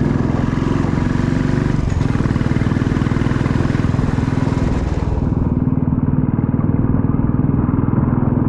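Motorcycle engine running steadily while riding, with a hiss over it that fades about five seconds in.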